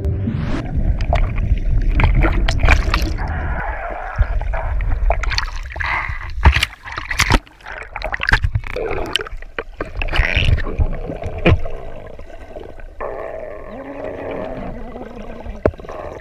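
Water sloshing and gurgling around an action camera as it moves underwater and through the surface, with a muffled low rumble in the first few seconds and many sharp splashes and knocks on the housing after that.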